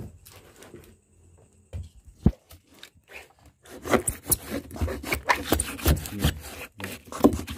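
A metal bar scraping and rubbing at a hornet nest wedged between wooden boards, in quick irregular strokes that start about four seconds in, after a single sharp knock about two seconds in.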